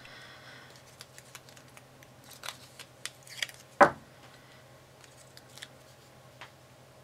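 Light clicks and rustles of a cardstock die-cut with foam-tape pieces being handled, with one sharper click just before four seconds in.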